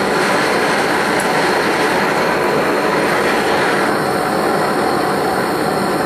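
Bernz-O-Matic JT539T swirl-flame propane torch burning steadily into a small melting furnace: a loud, even rushing noise, a little duller in the last couple of seconds.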